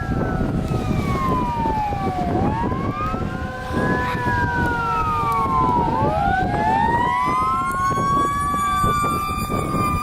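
Several outdoor tornado warning sirens wailing together, their pitches sweeping up and down out of step every couple of seconds, over a steady low rumble.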